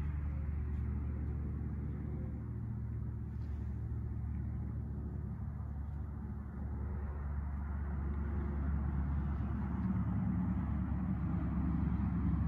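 A steady low rumble, growing a little louder over the last few seconds.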